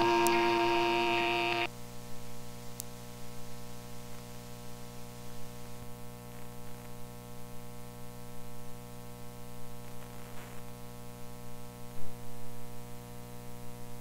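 A band's last sustained chord rings out and cuts off abruptly under two seconds in. It leaves a steady electrical mains hum with faint hiss and a few small clicks, one louder about twelve seconds in.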